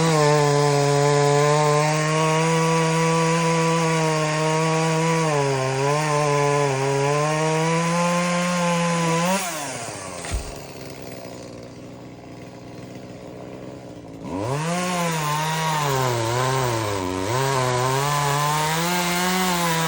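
Chainsaw revving and cutting through a limb, its pitch dipping as the chain bites, then dropping to idle about halfway through with a single knock. It revs back up for a second cut a few seconds later.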